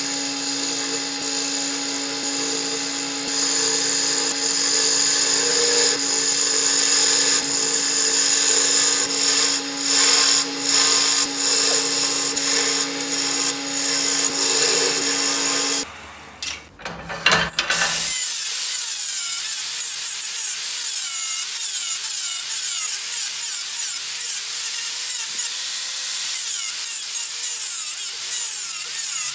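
Wood lathe running with a steady hum while a hand-held turning tool cuts into the spinning wood. About sixteen seconds in this stops, and after a short break an angle grinder with a sanding disc runs against the spinning wooden goblet, a higher, hissing sound without the hum.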